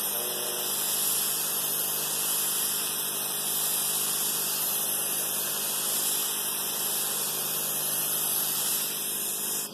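Sun Joe SPX4001 electric pressure washer running, its pump motor humming under the steady hiss of the high-pressure jet blasting dirty concrete sidewalk. The spray cuts off abruptly near the end.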